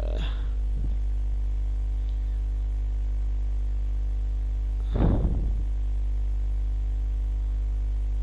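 Steady electrical mains hum on the microphone recording, with a brief sound from a man's voice about five seconds in.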